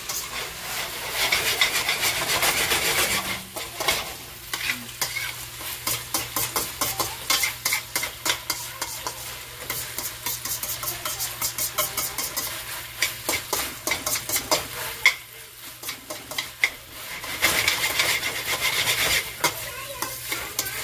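Pork with soy sauce, hoisin and green onion sizzling in a hot pan while it is stirred, the utensil scraping and clicking against the pan many times a second through the middle. The sizzle is heaviest near the start and near the end, with a brief lull about three-quarters of the way through.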